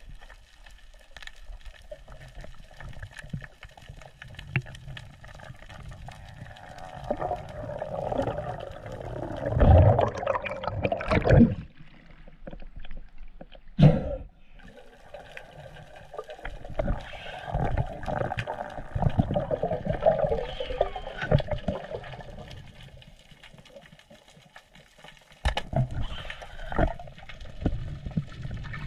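Water sounds heard through an underwater camera housing during a freedive: irregular bubbling and rushing water movement, with a sharp splash about halfway through as the diver breaks the surface, then underwater water noise again.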